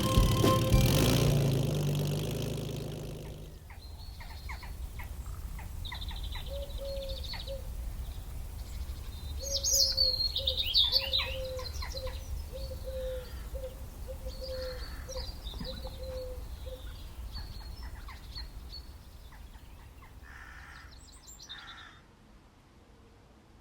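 Music fades out in the first few seconds, then birds chirping and calling over a low background rumble. One bird repeats a short, low note over and over for about ten seconds, and a burst of louder chirping comes about ten seconds in.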